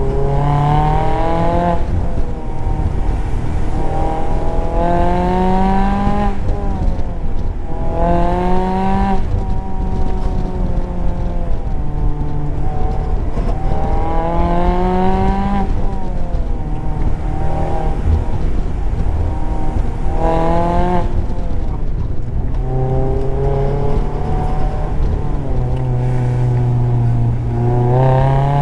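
Mazda MX-5 Miata's four-cylinder engine pulling hard up a winding road with the top down, its note rising in pitch under acceleration and then falling back, about seven times over. Steady wind and road noise run under it.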